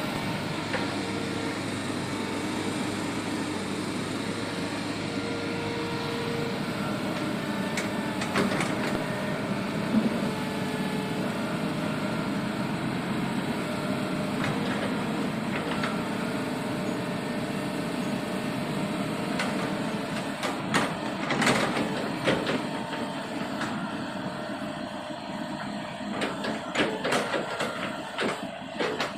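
Hydraulic excavator's diesel engine running steadily while it digs a ditch, with scattered knocks and clanks that come thicker in the last third.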